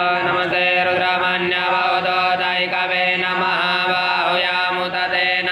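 Continuous chanting of Hindu devotional mantras, a single voice reciting in a steady, unbroken melodic flow.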